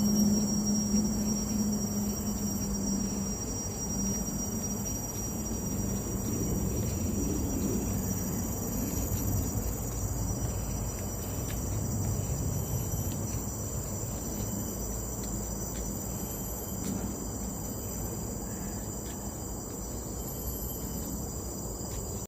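Chorus of insects in tropical forest, a steady high-pitched drone with a faster pulsing trill above it, over a low rumbling background.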